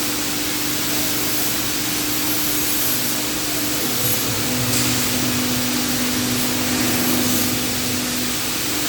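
CNC machine running: a steady hiss with a motor hum that drops to a lower pitch about four seconds in.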